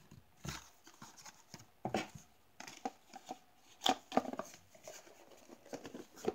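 Cardboard box parts handled on a table: scattered taps, knocks and light scrapes as the box insert and lid are picked up and turned over in the hands.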